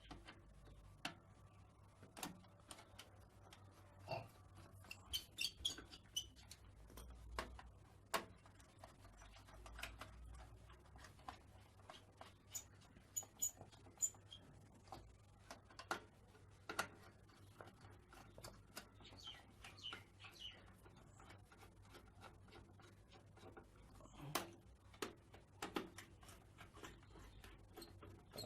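Faint, scattered clicks and taps of hands handling parts and screws inside a desktop computer case, with a low steady hum beneath.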